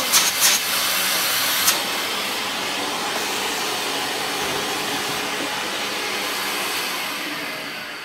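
Toshiba VCP-700S 750-watt bagless canister vacuum cleaner running steadily under suction, with a few light knocks in the first two seconds. Its level eases off near the end.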